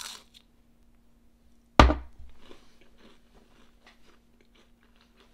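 A crisp tostón, a twice-fried smashed plantain slice, bitten into with one loud crunch about two seconds in, then chewed with a run of small crunches that fade away.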